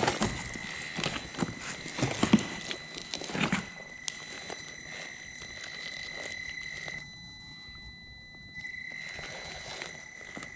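Traxxas TRX-4M Bronco RC crawler climbing over loose rubble: its tyres and chassis knock and clatter on broken boards and concrete for the first few seconds, over a steady high whine from its electric motor drive that drops out for about a second and a half past the middle.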